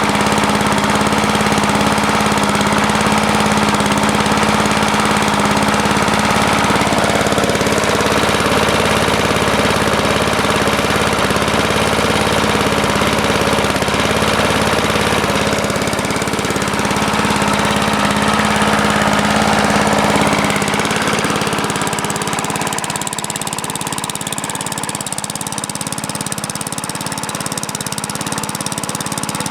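Tecumseh small engine of a walk-behind lawn mower running steadily at part throttle just after a cold start, its carburetor a little messed up by the owner's account. About two-thirds of the way through the sound grows quieter and less full.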